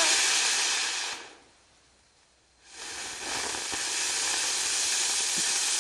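Fountain firework spraying sparks with a loud, steady hiss that fades out about a second in. After a short lull the hiss starts again at about two and a half seconds and holds steady.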